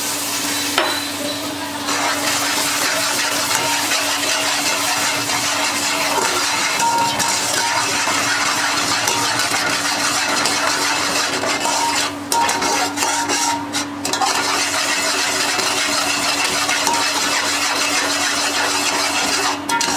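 A hot food mixture sizzling steadily in a metal pot as water is poured in, while a metal slotted spatula stirs and scrapes it around the pot. A steady low hum runs underneath.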